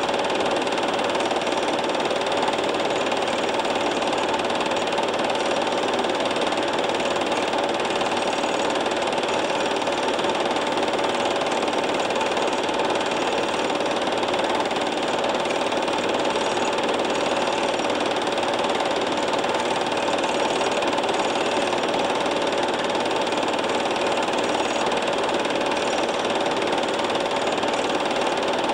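A machine running steadily, with a constant hum and a fast, even mechanical clatter that does not change.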